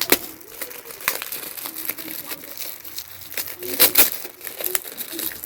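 Gift wrapping being crinkled and torn open by hand: irregular crackling rustles, the loudest burst about four seconds in.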